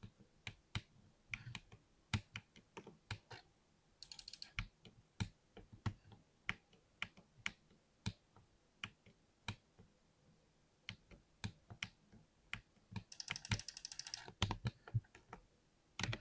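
Typing on a 60% mechanical keyboard with lubed Cherry MX switches: separate keystroke clacks at an uneven pace of a few per second, with two short rapid flurries about four seconds in and near the end.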